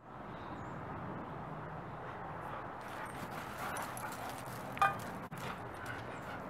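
Dogs play-wrestling on gravel: paws scuffling and scratching over a steady background hiss, with one short, sharp yip a little under five seconds in.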